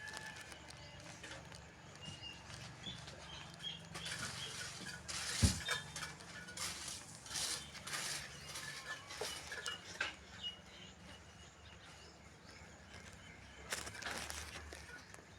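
Scattered knocks, clicks and scrapes of masonry work with bricks and cement, with one sharp knock about five and a half seconds in, and faint short chirps.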